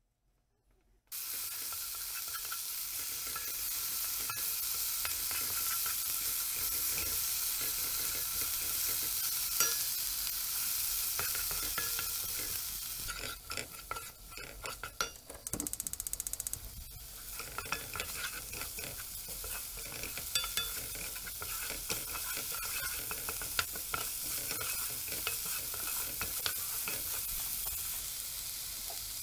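Diced onion, spring onion and garlic sizzling in hot oil in a nonstick wok, stirred and scraped with a wooden spoon. The sizzle starts suddenly about a second in as the vegetables go into the oil, and it drops and turns choppy for a few seconds around the middle while they are tossed.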